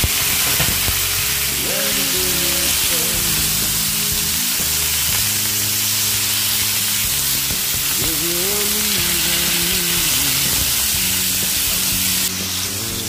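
Marinated shrimp sizzling loudly as they fry in hot olive oil with ginger in a nonstick pan. The sizzle eases slightly about a second before the end.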